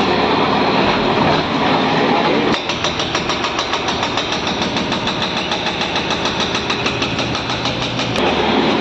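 Diesel engine of a demolition bulldozer (JCB-type machine) running with an even, throbbing beat. The first couple of seconds are a louder, busier jumble of noise before it settles into the steady pulse.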